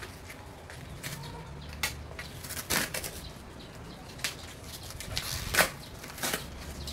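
Cardboard shipping box being opened by hand: scissors slitting the packing tape, then the cardboard flaps and the wrapping inside rustling and scraping in several short bursts, the loudest about five and a half seconds in. A low steady hum runs underneath.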